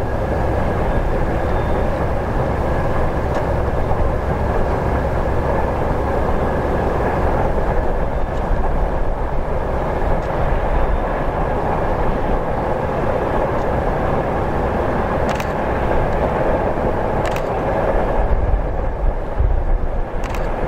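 2M62U diesel locomotive section working hard under a heavy load, with the steady drone of its two-stroke 14D40 diesel engine heard from afar. A constant low rumble lies under it, and there are a few faint clicks near the end.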